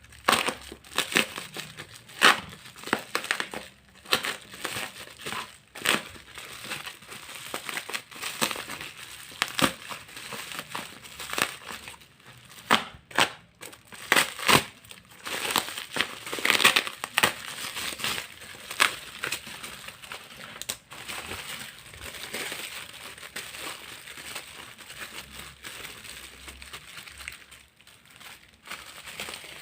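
Parcel packaging being crinkled, crumpled and torn open by hand, in irregular crackling rustles throughout.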